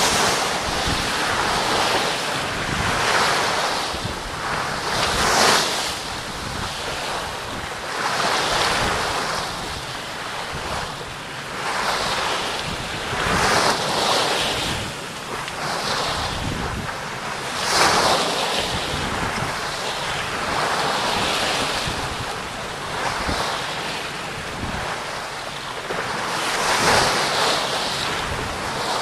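Outbound 44 sailboat's hull driving through rough seas: the bow wave rushes and sprays along the side, surging louder every few seconds as she meets each swell. Wind buffets the microphone throughout.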